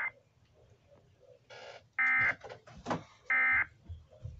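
Emergency Alert System digital data bursts: the buzzy, screechy SAME end-of-message code sent after an alert. There are two short, loud bursts about 2 and 3.3 seconds in, a little over a second apart, with the end of an earlier burst right at the start.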